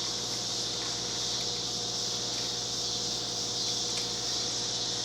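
Steady high-pitched background hiss over a low hum, with a few faint light clicks as acorn nuts are threaded by hand onto the exhaust flange studs.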